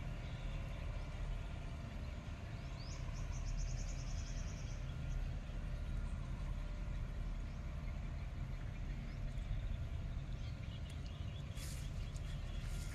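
Open-air ambience dominated by a steady low rumble of wind on the microphone, with a short, high, rapid bird trill about three seconds in.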